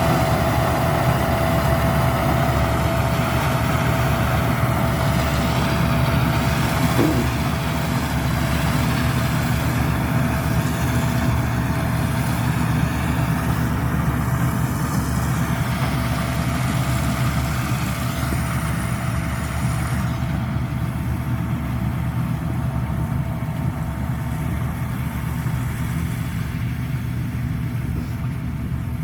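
Rice combine harvester's engine running steadily, with a thin steady whine over the engine hum.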